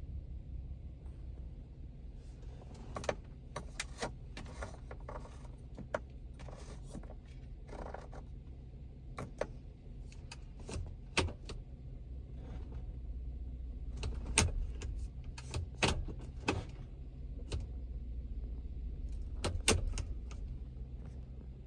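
The 2016 Ford F-150's 3.6L V6 idling as a steady low hum, heard from inside the cab. Sharp clicks and light rattles come and go over it, the loudest in the last third.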